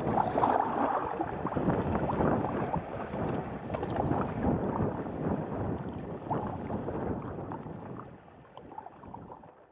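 Wind buffeting the microphone on a sea kayak, with water lapping against the hull. The sound fades out near the end.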